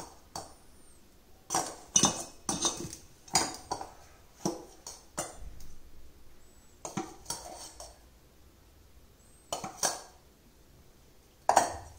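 A steel spoon and ladle clink and scrape against stainless steel tins and bowls while ragi flour is scooped out. About a dozen irregular metal clinks, with quiet gaps between them.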